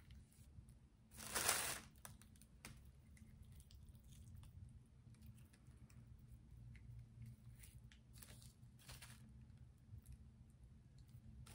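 Faint crunching and tearing of soft mold material as it is pried and pulled off a cast hand, with one louder burst of noise about a second and a half in and two shorter ones near the end.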